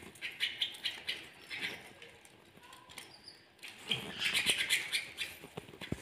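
Canaries giving short chirps while feeding, mixed with light clicks, with a busier, louder run of chirps about four seconds in.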